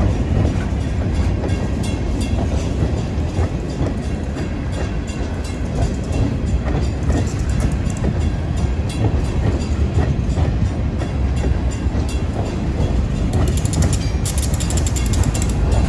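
Freight train of open-top hopper cars rolling past: a steady low rumble with the wheels clicking over the rail joints. Near the end a rapid, high clicking joins in.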